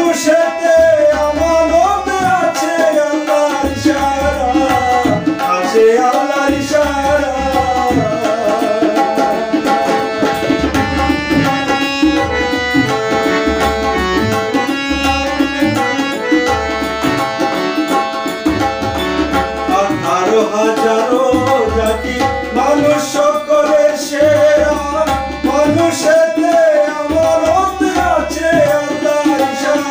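Tabla and harmonium accompanying a man singing a Bengali devotional folk song. The voice drops out for a harmonium-and-tabla interlude in the middle and comes back a few seconds after it.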